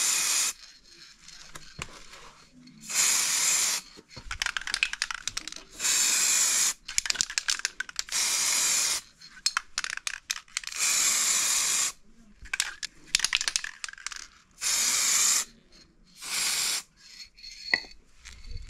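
Aerosol spray paint can sprayed in about seven short bursts of hiss, each under a second long, with clicks and rattles in the gaps between them.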